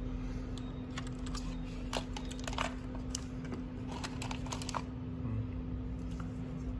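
Keyboard keys clicking irregularly in short clusters, like sparse typing, over a steady low hum.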